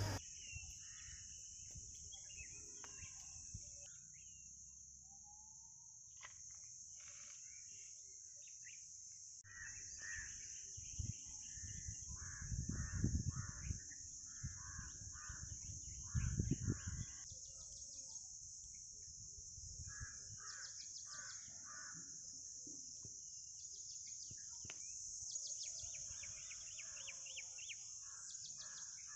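Faint outdoor ambience: birds calling in short runs of four or five quick calls, several times, over a steady high-pitched insect drone. Two brief low rumbles of wind on the microphone come around the middle.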